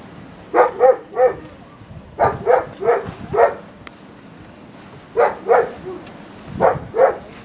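A dog barking in short groups of two to four barks, about eleven barks in all, with short pauses between the groups.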